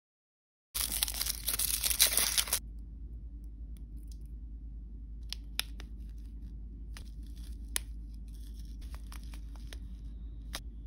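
Toy blind-bag packaging torn open and crinkled for about two seconds after a brief silent gap. Then come scattered light taps and crinkles as a small plastic packet is handled.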